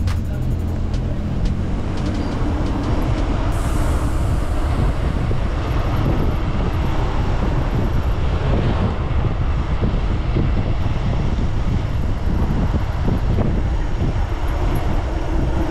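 Steady rumble of wind buffeting the camera microphone, with tyre noise, while riding a mountain bike along the road.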